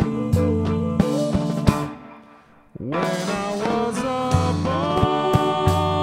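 Live rock band playing: electric guitar and drum kit with a steady beat. About two seconds in the band stops for under a second, then comes back in with notes that slide upward.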